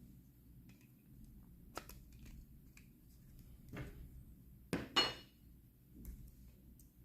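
A few light metallic clinks and knocks from handling the hair trimmer's metal parts on a work surface, the loudest a quick double knock about five seconds in.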